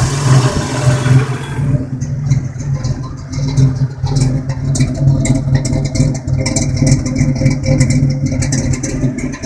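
Toyota 3VZ-E 3.0 L V6 idling very roughly, its note surging and dipping unevenly, with light irregular ticking over it. The rough idle appears with the throttle position sensor plugged in.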